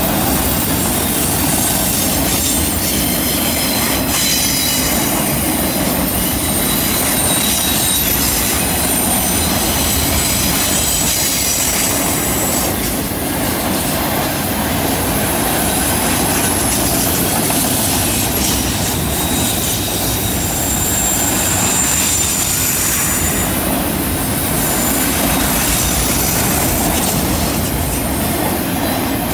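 Autorack freight cars rolling past on a curve: a steady rumble of steel wheels on rail, with thin, high wheel squeal coming and going as the wheel flanges grind against the curved rail.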